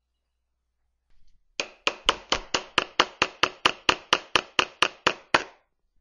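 Hammer driving a nail into the cedar roof board of a birdhouse: a quick, even run of about seventeen strikes, roughly four or five a second, starting about a second and a half in.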